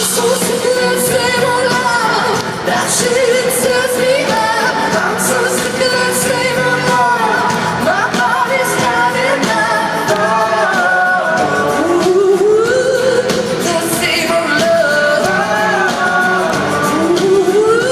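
Live pop song: a singer's voice carrying a melody over loud backing music, echoing in a large hall as heard from the audience.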